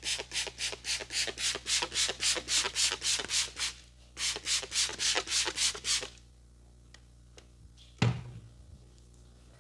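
Hands rubbing briskly back and forth in a champi massage, about five strokes a second, with a short break about four seconds in, then stopping about six seconds in. A single sharp thump follows near the end.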